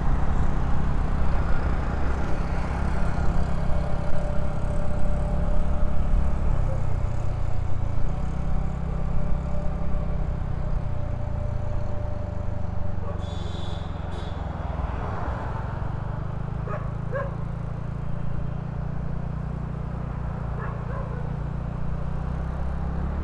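Riding a motor scooter through city traffic: a steady low rumble of wind buffeting the microphone and road noise, with a brief hiss about halfway through and a few faint short sounds from the street near the end.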